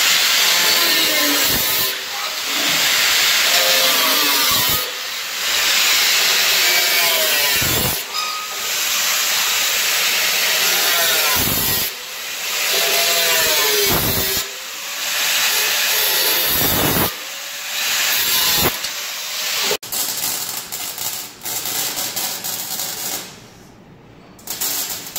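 Angle grinder cutting through the sheet steel of a car's front fender along the wheel arch, a loud hissing whine whose pitch sags and recovers as the disc bites, easing off briefly every two to three seconds. About twenty seconds in it stops and gives way to a MIG welder crackling in short spurts of clicks.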